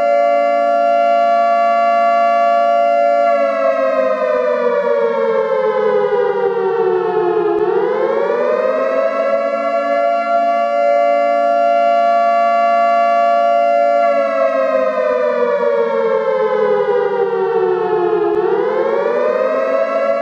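Air raid siren wailing, sounding a chord of tones: it holds a steady high pitch for several seconds, slides slowly down, then winds quickly back up, and the whole cycle happens twice.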